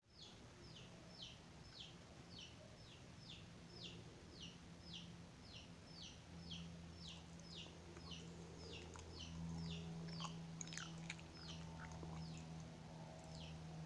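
A bird chirping over and over, short high chirps sliding downward at about two a second, over a steady low hum.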